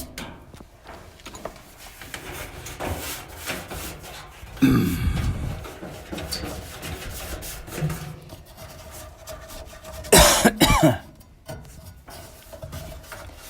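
A man coughs and clears his throat, briefly about four and a half seconds in and more loudly about ten seconds in, between faint scraping and handling noises.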